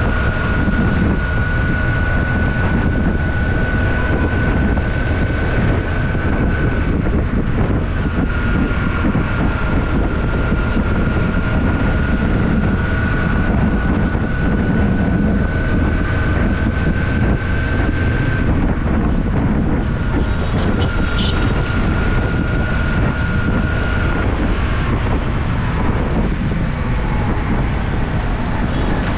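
Motorbike ride heard from on board: the engine running steadily under heavy wind rumble on the microphone. A thin, steady high whine runs along with it, dropping out briefly a couple of times and stopping a few seconds before the end.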